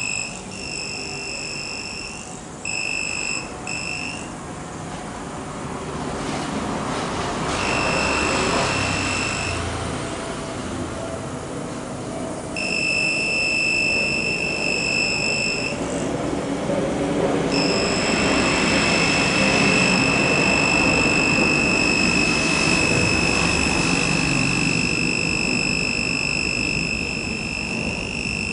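Non-contact voltage tester's buzzer sounding a steady high beep over a rushing background noise. It switches on and off in short stretches for the first half, then holds unbroken for about the last ten seconds, the tester's signal that it is picking up live voltage.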